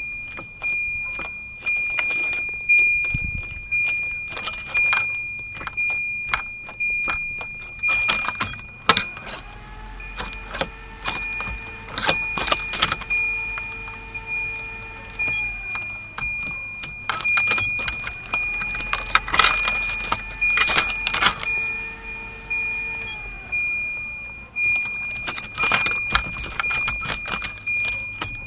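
Volvo 740 starter motor running in three long spells, each whining up to a steady pitch and then winding down, without the engine firing: a no-start. A high-pitched warning beep sounds throughout, with keys jangling and clicking.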